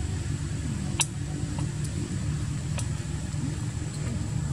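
A steady low rumble of a running engine, with two sharp clicks, about a second in and nearly three seconds in.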